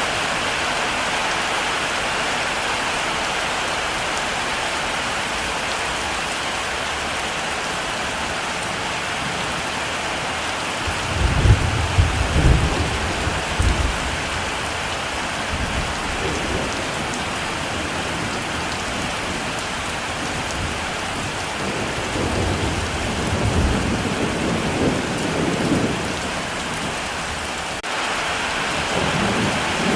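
Heavy rain falling steadily. Thunder rumbles twice, once about a third of the way in and again past the middle.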